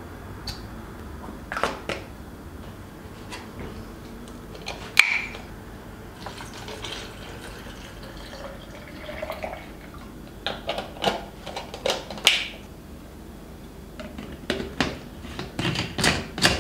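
Kitchen work: a scattered string of light clicks and knocks from items being handled, with one sharp click about five seconds in, over a faint sound of liquid.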